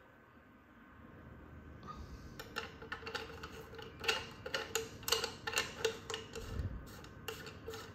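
L&R Master watch-cleaning machine switched on and running, with a faint hiss over a low hum and many irregular rattling clicks and ticks starting about two seconds in.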